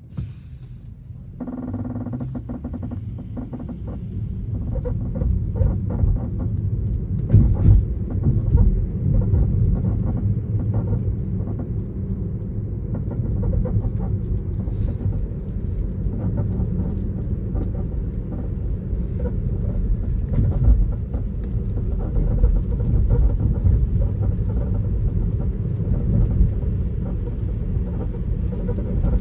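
Tesla Model 3 driving straight: short creaks and ticks from the car's body or suspension come now and then over a steady low rumble of tyres on the road.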